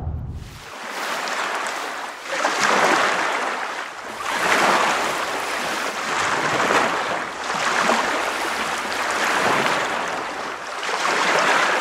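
Ocean waves washing in, a rushing noise that swells and fades about every two seconds.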